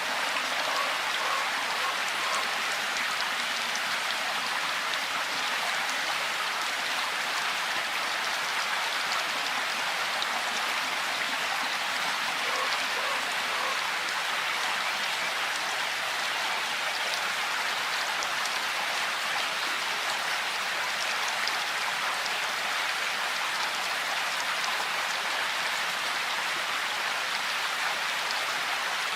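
Steady rainfall, an even patter of many drops without let-up.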